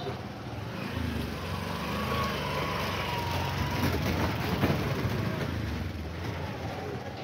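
A motor vehicle's engine running close by on the street, growing louder over the first few seconds and easing off near the end.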